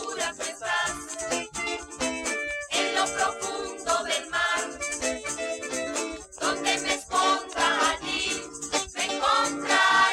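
Music from a Spanish-language Christian youth group's song recording, with quickly changing notes and short percussion strokes throughout.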